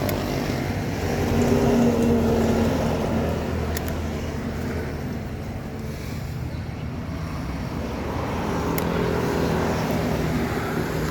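A motor engine running steadily nearby: a low, even hum that eases slightly in the middle and comes back up, with a couple of faint clicks.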